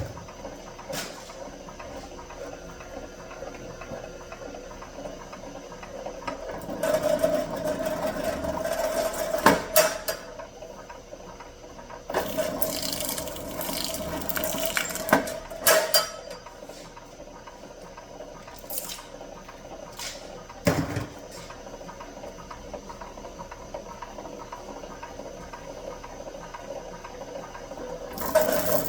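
Electric wire-stripping machine running as thick 300 MCM copper cable is fed through it, the insulation casing ripping off. Louder stretches of tearing come about seven seconds in and again about twelve seconds in, with a few sharp knocks later on.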